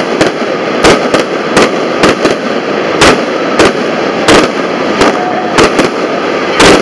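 Fireworks going off in quick succession: a string of sharp, irregular bangs about two a second over a steady noisy background, the loudest bang coming near the end.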